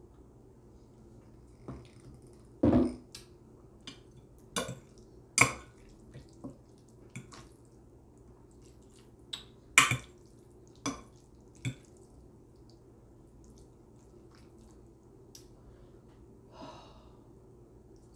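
Metal fork clinking and scraping against a glass baking dish of spaghetti: a dozen or so sharp, separate clinks over the first twelve seconds, the loudest about ten seconds in, with a duller thump about three seconds in.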